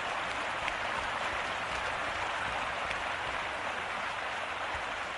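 Steady, even hiss of outdoor ambience with no distinct events.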